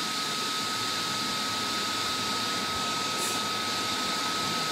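Dyson Cool bladeless tower fan running steadily: an even rush of air with a thin, steady high whine.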